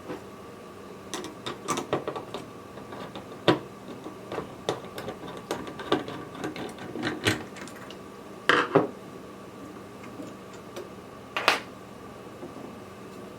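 Screwdriver undoing the spring-loaded mounting screws of a Noctua CPU heatsink: irregular small clicks and metal taps, with a few sharper knocks. A faint steady hum lies underneath.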